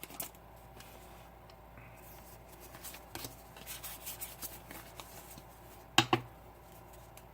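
Faint rustling and sliding of Pokémon trading cards being handled, with one sharp snap about six seconds in.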